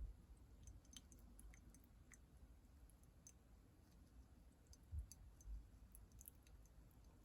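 Faint, scattered small clicks and crackles, with two soft low thumps about five seconds in.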